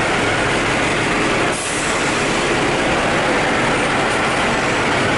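Heavy diesel tractor-trailer engine running steadily as the truck crawls along, heard loud from outside the cab beside its chrome air cleaner. There is a brief hiss about a second and a half in.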